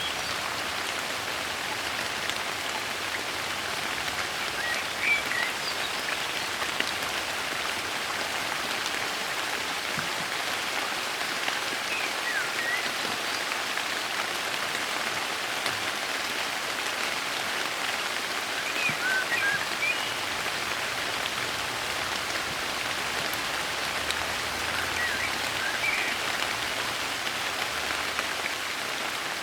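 Steady soft rain falling, with short bird chirps breaking through every several seconds.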